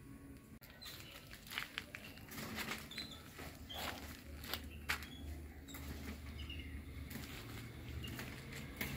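Faint outdoor ambience: scattered rustles and clicks, a few short high bird chirps, and a low steady hum that comes in about four seconds in.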